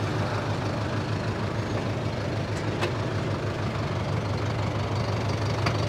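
Sonalika Tiger DI 65 tractor's common-rail diesel engine running steadily at an even pace.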